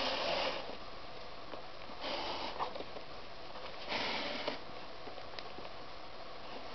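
A flat shoelace being pulled through a sneaker's eyelets: three short rubbing pulls about two seconds apart, with a few faint clicks between them.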